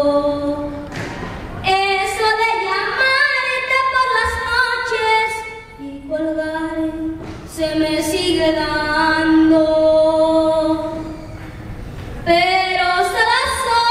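A child singing a song unaccompanied, with long held notes and short breaks for breath about a second in, around six seconds in and near the end.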